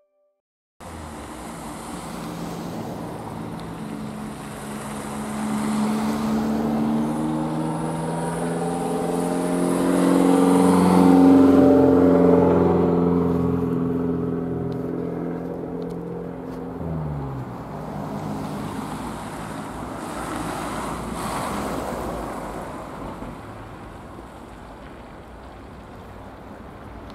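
2TE116UD twin-section diesel locomotive approaching, its diesel engine running with a steady pitched drone that grows loudest about ten seconds in. Around seventeen seconds in the engine note drops in pitch and fades, leaving a lower rumble.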